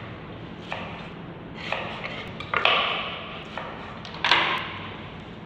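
Knife slicing through stacked cabbage leaves on a wooden cutting board, cutting thin chiffonade strips: a crisp crunching cut ending in a knock on the board, about five strokes roughly a second apart.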